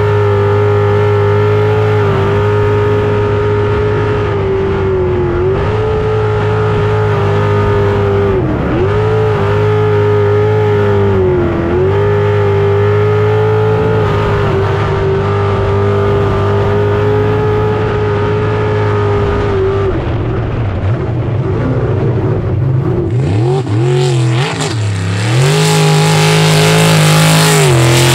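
Jet sprint boat's engine running hard and steady at high revs, dipping briefly in pitch a few times. In the last few seconds the engine pitch swings up and down and a loud hiss of water spray joins it.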